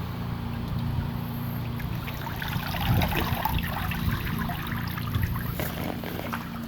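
Shallow creek water trickling, with splashing and sloshing through the middle as a dog lies down in it. A steady low motor hum runs underneath.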